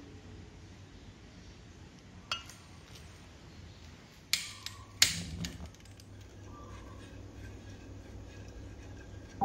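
A few sharp clinks and clacks of kitchen utensils against a pan: one light click, then the two loudest close together about halfway through, followed by a few softer clinks, over a low steady hum.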